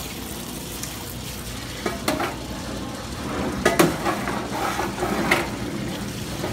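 Filter King fryer oil filtration machine running, its pump sending hot cooking oil splashing from a stainless steel rinse wand into a commercial fryer pot. The wand knocks and clinks against the fryer's metal sides several times, the loudest pair of knocks about four seconds in.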